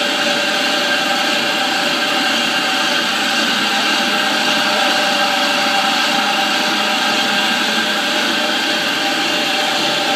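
ASL T8-650 floor grinding and polishing machine running steadily as it polishes a stone floor under wet white polishing compound: a constant motor hum with several held tones.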